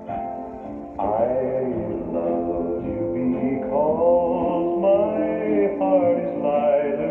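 Recorded music with a male voice singing, played through a Grundig TK64 valve reel-to-reel recorder and its loudspeakers; the song swells in about a second in and carries on steadily.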